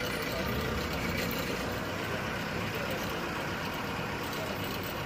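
Vehicle engine running steadily at low speed, heard from inside the cab, with the general hum of a busy parking ground around it.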